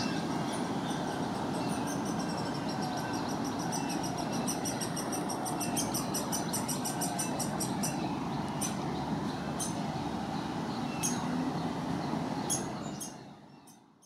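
Downy woodpecker chick begging for food from its nest hole with incessant, very high peeps. The peeps come several a second for the first half, then more sparsely, over a steady low background rumble. Everything fades out near the end.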